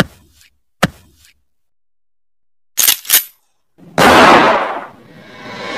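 Gunshot sound effects: a single sharp shot just under a second in, two quick shots about three seconds in, then a louder blast about four seconds in that fades away over a second. Music swells in near the end.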